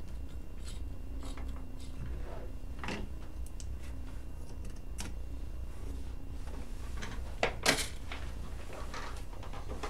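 Scattered light clicks and taps of small parts and tools being handled on a repair bench, the loudest a couple of sharp clicks near the end, over a steady low hum.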